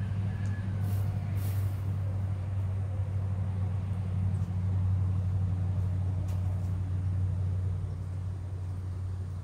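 An engine running steadily at an even low pitch, easing off slightly near the end, with a few faint clicks about a second in.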